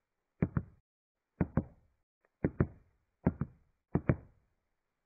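Knocking: five double knocks, each a quick pair of sharp raps, spaced about a second apart and coming a little quicker toward the end.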